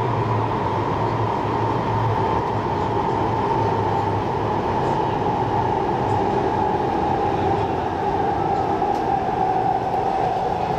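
MTR SP1900 electric train heard from inside a car while running, with a steady rumble and, over it, a single whine that falls slowly in pitch.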